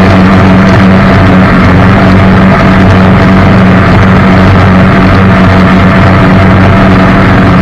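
Jet boat engine running loud and steady under way, with an even low hum over a rush of noise.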